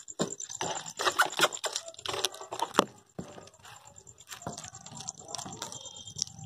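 A cat chewing raw meat close to the microphone: irregular wet smacks and sharp clicks of its teeth, busiest in the first three seconds and sparser after.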